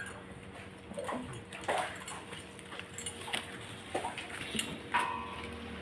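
A dog whimpering and yelping in several short cries, one of them held briefly about five seconds in, amid rustling and light knocks.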